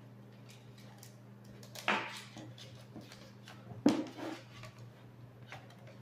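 Light plastic knocks and rubbing as a power cord is fed through a fan's hollow plastic stand tube, with sharper knocks about two seconds in and again near four seconds, over a steady low hum.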